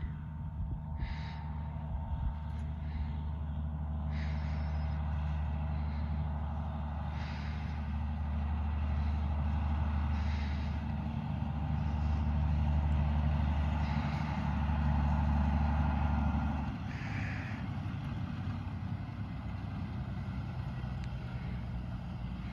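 Heavy diesel engine running, its note swelling and easing back, with short hisses about every three seconds.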